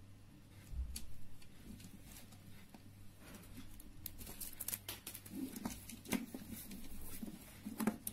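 Faceted plastic crystal beads clicking lightly against one another as they are threaded and the beadwork is handled, with soft handling rustle. The small irregular clicks come in scattered clusters, most of them from about halfway through.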